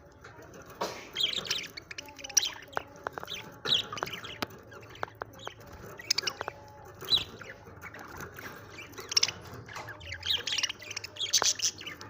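Budgerigars chirping and chattering in short, irregular high calls, with a few sharp clicks among them.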